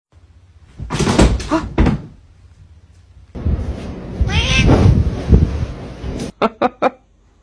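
A cat meowing loudly in two bouts, the first about a second in and a longer one from about three seconds in. Four quick knocks follow near the end.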